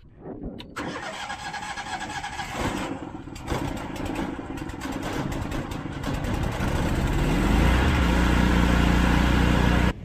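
Lincoln Electric Ranger 225 welder-generator's gasoline V-twin engine cranked by its electric starter for a few seconds, then catching and running. It builds up and settles into a steady, loud run near the end.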